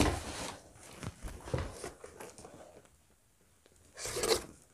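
Handling noise from a backpack and its cardboard box: a few soft knocks and rustles, a near-quiet pause, then a short louder rustle near the end.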